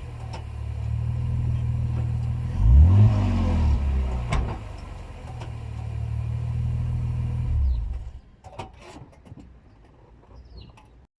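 BMW E46 engine running, with a brief rise and fall in revs about three seconds in and a sharp knock just after. The engine sound stops about eight seconds in, leaving a few faint clicks.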